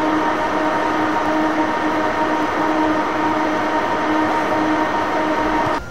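An EF63 electric locomotive and a 189 series electric train standing coupled, their onboard electrical equipment giving a loud, steady whirring hum with several steady tones. It cuts off abruptly near the end.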